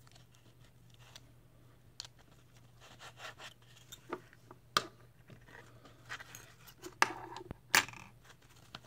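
Small metal coil-building tools being pulled from a fabric tool pouch and set down on a wooden desk: scattered light clicks and taps with some rustling of the pouch, the sharpest taps about five, seven and eight seconds in.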